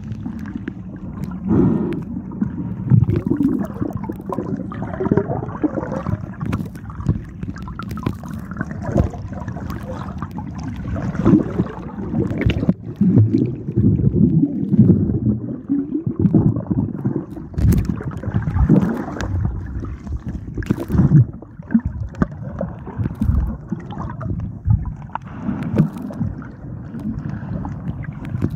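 Muffled, irregular water sounds picked up by a microphone underwater: gurgling and sloshing as the camera is moved through the water, with scattered sharp knocks.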